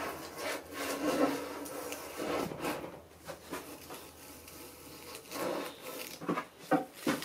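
Hand plane shaving across a laminated 2x4 bench top in several strokes, knocking down high spots to flatten it. A couple of sharp knocks come near the end.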